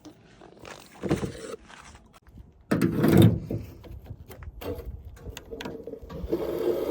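Handling knocks and clatter with one loud thump about three seconds in, then a vehicle engine running with a steady low hum that grows toward the end.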